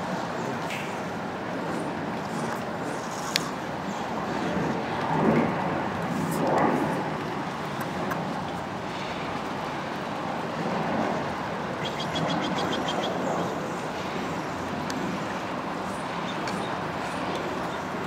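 Steady outdoor background noise with the hum of road traffic; a vehicle swells past about five to seven seconds in. Near twelve seconds a short run of rapid high ticks comes, about eight a second, lasting around a second.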